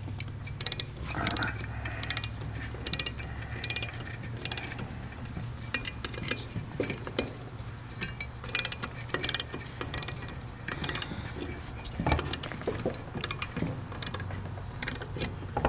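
Light, irregular metallic clicks and taps from the parts of an Edelbrock carburetor being handled as the brass float is fitted back onto the air horn, over a steady low hum.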